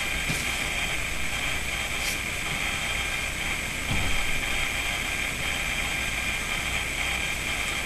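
Steady background whirring hiss, like a fan or air conditioner running, with a soft thump about four seconds in.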